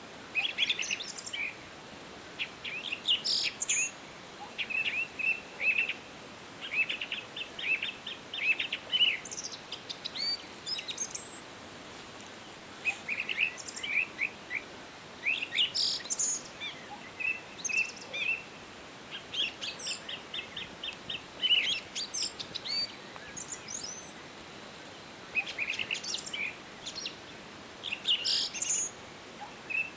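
Songbirds singing and calling: clusters of quick chirps, trills and rising whistled notes, with short lulls between them, over a faint steady background hiss.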